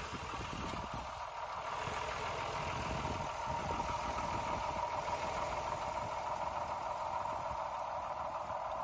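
The three-cylinder diesel engine of a 1974 John Deere 830 tractor idling steadily.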